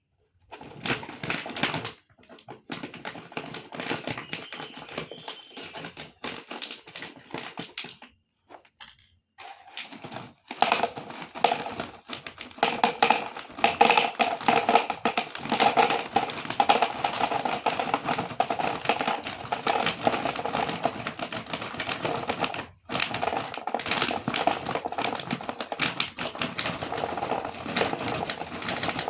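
Small Eid snacks clattering into a jar as it is filled: a dense run of rapid clicks and rattles that pauses briefly about eight seconds in, then turns louder and more continuous.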